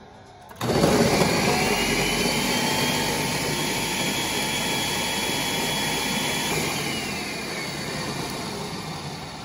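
Ninja countertop blender running, blending a smoothie. It starts about half a second in, and its motor whine rises as it gets up to speed. Past the middle the whine drops in pitch and the noise slowly tapers off.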